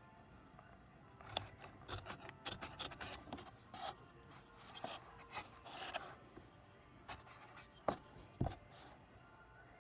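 A hand tool scraping and rubbing on wood in short, irregular strokes, followed by two sharp knocks near the end.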